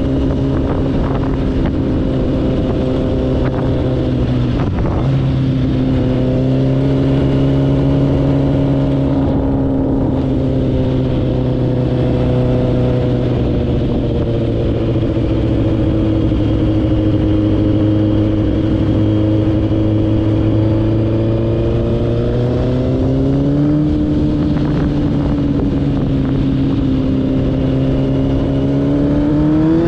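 Yamaha R1 1000cc inline-four engine in a Raptor quad bike running under way at fairly steady revs over a steady rush of noise. Its pitch dips briefly about five seconds in, then climbs again around three-quarters of the way through and once more near the end as the revs rise.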